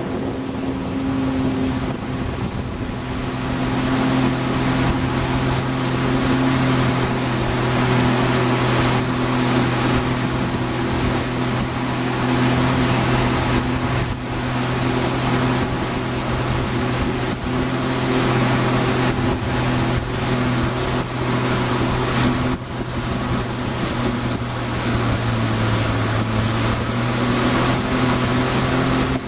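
Tow boat's engine running steadily at speed, with the rush of its wake and spray and wind buffeting the microphone. The engine's pitch drops slightly near the end.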